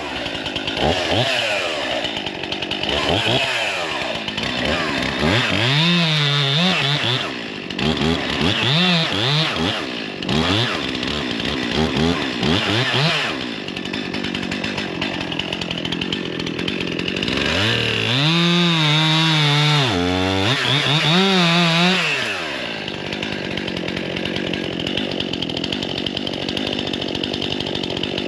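Stihl two-stroke chainsaw revving up and down repeatedly. About halfway in it holds a high, wavering pitch for several seconds while cutting, then settles back to a steadier, lower run near the end.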